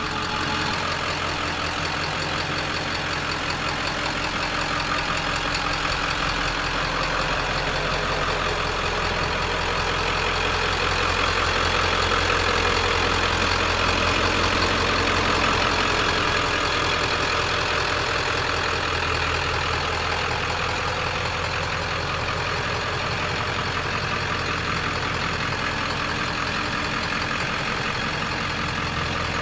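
Ford OBS pickup's 7.3-litre V8 diesel idling steadily, a little louder around the middle.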